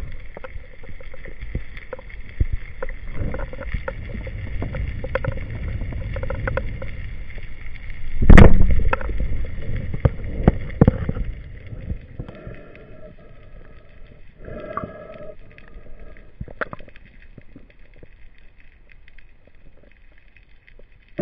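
Underwater sound: water swishing and rushing around the camera, then a single loud speargun shot about eight seconds in. The water noise dies down after that, with a few short hums.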